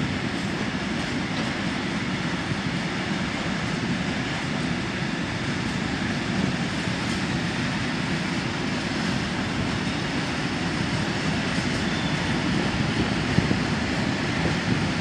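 Steady engine drone from a yellow rail maintenance vehicle standing by the track, running at an even level.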